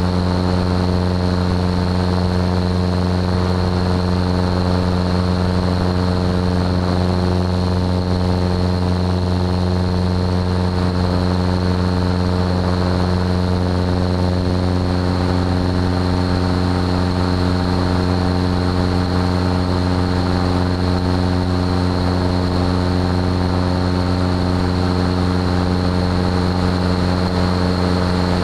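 Aviat Husky A-1C's piston engine and propeller running steadily in flight, a constant low drone with no change in pitch.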